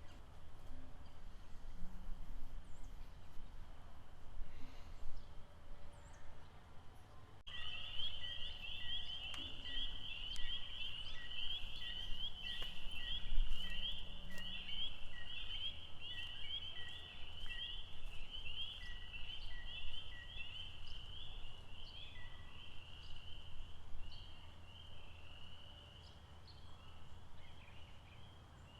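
Outdoor lakeside ambience with a steady low rumble. About a quarter of the way in, a high, fast trill of rapidly repeated notes from a small animal starts abruptly. It carries on strongly, then thins out near the end.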